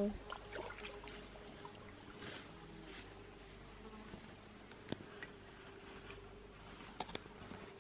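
Rainforest insects chirring in a steady high drone, with a few sharp clicks, the clearest about five and seven seconds in.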